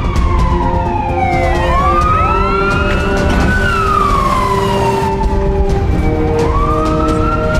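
Fire engine siren wailing, its pitch rising and falling slowly, with more siren glides crossing it for a second or two about two seconds in. A low rumble runs underneath.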